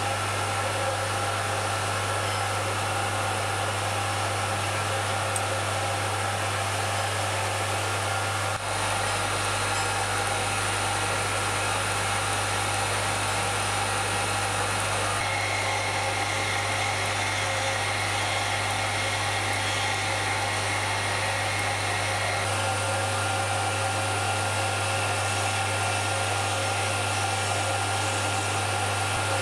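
Belt-driven cutter spindle and its electric motor on a Schaublin 102 lathe, running steadily to cut clock wheel teeth. A constant hum with several steady whining tones, its character changing slightly a few times.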